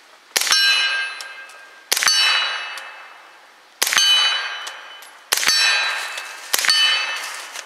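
Five suppressed shots from a Colt 9mm AR-15 carbine, every second and a half to two seconds. Each shot is followed almost at once by the clang of a steel plate target, ringing for about a second. The plate being hit is a lot louder than the muffled gunshot.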